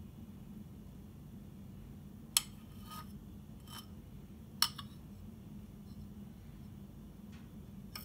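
A spoon clinking against the metal baking pan and bowl while glaze is spread over a cake: two sharp clinks about two seconds apart, with a few fainter taps. A low steady hum runs underneath.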